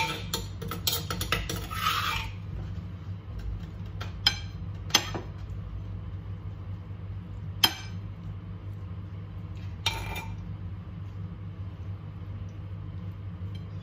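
Metal spoon scraping and clinking inside a clay mortar for about two seconds, then four separate sharp clinks of the spoon against a plate as papaya salad is spooned onto it. A steady low hum runs underneath.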